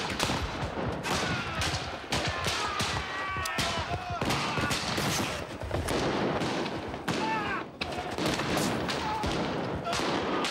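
Flintlock muskets and pistols firing in ragged, irregular volleys, many shots close together, over men shouting and yelling.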